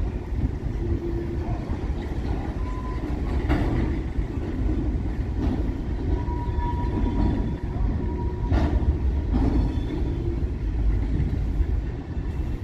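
A freight train of empty cars behind Reading and Northern locomotive 2102 running on the rails: a steady heavy rumble with a few sharp metallic clanks, the clearest about three and a half and eight and a half seconds in, and brief faint high tones.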